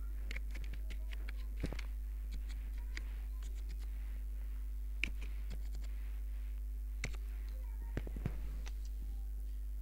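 Steady low electrical hum, with faint irregular clicks and ticks scattered throughout; the sharpest come about five seconds in and again near eight seconds.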